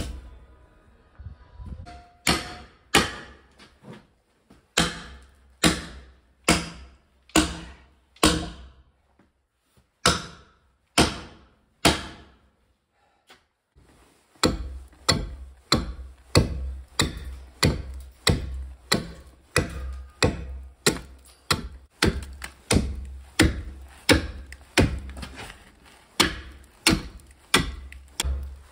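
Axe blows chopping into a green log as it is hewed flat. For the first half the strikes come singly and unevenly, about one a second. After a short pause about halfway, they come in a steadier run of about two a second.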